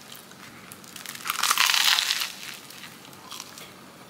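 A crunchy bite into a sourdough sandwich with lettuce: a loud crackling crunch about a second in, lasting about a second.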